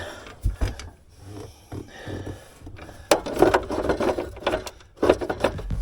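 Hand tools and metal parts clattering during tractor disassembly: a couple of sharp knocks in the first second, then a stretch of rapid rattling and clicking about halfway through and another short burst near the end.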